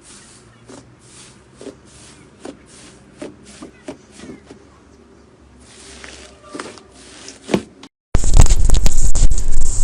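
Slime being squeezed and poked, with soft sticky clicks and small pops about every half second. About eight seconds in it switches suddenly to a much louder, dense crackling.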